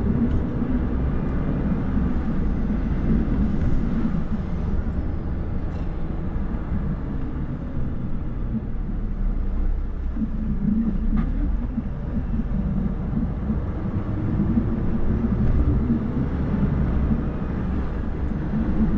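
Steady low rumble of a truck running, even throughout with a few faint clicks.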